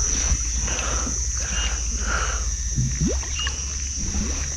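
Water swishing and lapping around a small boat moving along a river, in soft surges about once a second, over a steady high-pitched insect drone.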